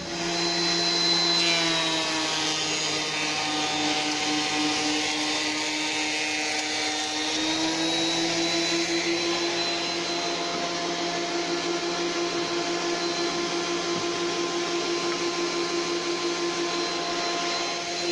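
Woodworking planer running steadily with a high whine, planing small tulipwood strips. Its pitch dips slightly for a few seconds in the middle, then settles again.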